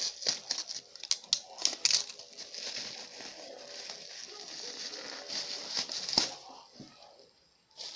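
Packaging being handled and crinkled, with quick sharp crackles and taps in the first two seconds, then a steady rustle, and a last sharp click about six seconds in.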